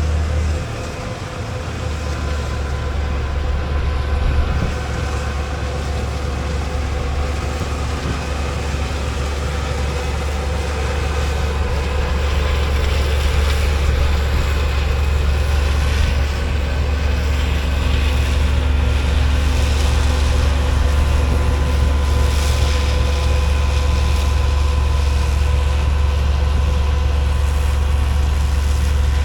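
Combine harvester running steadily while cutting soybeans: a constant low engine drone with a steady machine hum over it.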